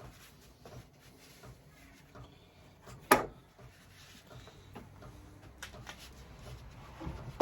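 Quiet handling sounds of a clamp being fitted onto a glued wooden chair: light rubs and ticks, with one sharp knock about three seconds in.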